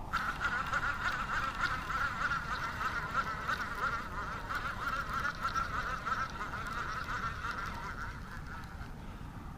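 A dense chorus of frogs calling together, a steady warbling trill at mid pitch that fades away near the end.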